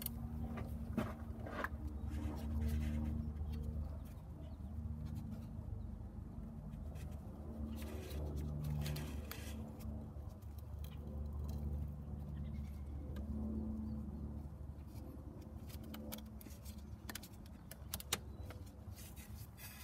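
Metal wrench and rubber serpentine belt being worked over an engine's pulleys and tensioner, giving a few scattered clicks and knocks. A low, wavering hum runs under it.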